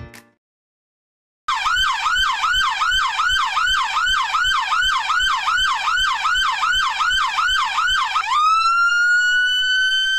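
Electronic police escort siren starting after a second of silence, cycling fast in a yelp of about three pitch sweeps a second, with a low thump on each sweep. Near the end it switches to a slowly rising, held wail.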